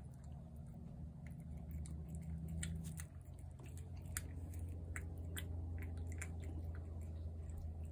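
A cat crunching dry kibble, with irregular crisp crunches over a steady low hum.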